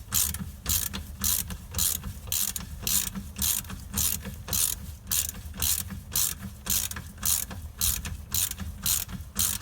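Hand ratchet clicking in steady back-and-forth strokes, about two a second, turning the forcing screw of a bearing puller to draw a stuck-on piece of the old rear wheel bearing off.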